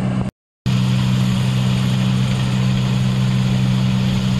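Farm tractor and combine harvester engines running steadily as the machines drive slowly along the road, a constant low drone. The sound drops out completely for a moment just after the start.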